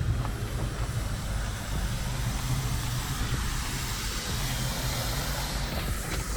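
A heavy equipment engine runs steadily at idle, with a broad, steady hiss over it that swells slightly midway, fitting water escaping from a damaged buried water line.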